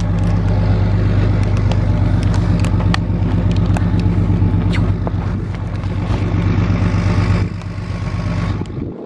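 An engine idling steadily with a low, even hum that eases off near the end.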